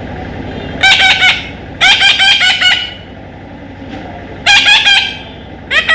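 Parrot calling in four loud bursts of rapid, harsh, repeated squawks.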